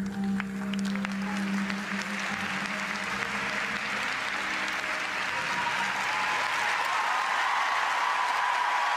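Arena audience applauding, the clapping swelling over the first few seconds and then holding steady. Under the start of it, the program music ends on a held low note that fades out within about two seconds.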